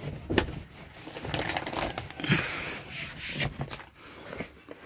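A rag wiping and rubbing over dirty surfaces, with irregular scratchy rustles and a few light knocks from handling.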